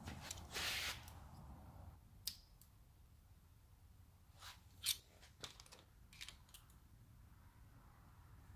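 Faint handling noises at a small-block Chevy cylinder head while the exhaust valve lash is being set: a brief rustle under a second in, then a scatter of light, sharp metallic clicks and taps as fingers and a steel feeler gauge work around a rocker arm and poly lock.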